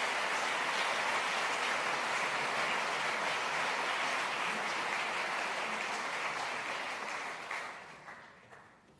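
Audience applauding, the clapping dying away about seven to eight seconds in.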